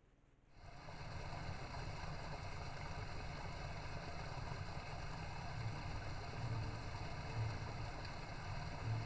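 Steady rushing of stream water picked up by a trail camera's microphone, with a constant electronic hum, starting abruptly about half a second in.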